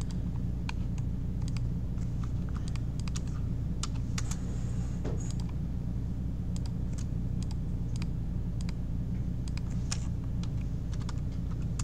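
Computer keyboard typing: short, irregular key clicks as commands and values are entered, over a steady low hum.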